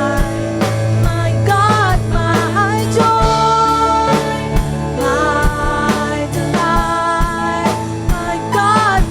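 Christian worship band music: a drum kit keeping a steady beat under sustained chords, with a melodic line that bends and slides at times, sung or played without clear words.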